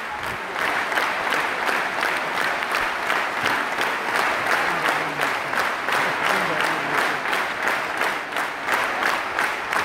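A large arena crowd applauding: a dense, steady clatter of many hands clapping, with a few faint voices under it.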